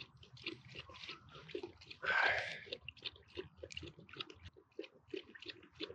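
Alaskan Malamute lapping water from a bowl in a quick, even rhythm of about four laps a second, with one louder slurp about two seconds in.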